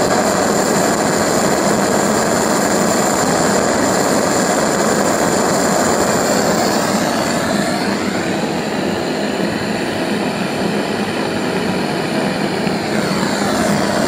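Homemade LPG and compressed-air pulse detonation combustor with a water jacket and steam jets, running with a loud, steady rushing noise and a thin steady high-pitched tone over it. It is a little quieter for several seconds in the middle.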